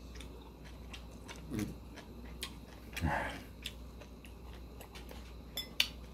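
A man chewing a mouthful of food, with small wet mouth clicks. Two short voice-like mouth sounds come about a second and a half in and, louder, around three seconds in. Metal chopsticks click sharply against the bowl near the end.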